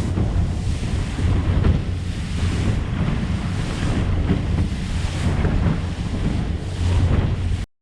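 Aluminum bay boat running fast through chop: wind buffeting the microphone over rushing water and the hull knocking on the waves. The sound cuts off abruptly near the end.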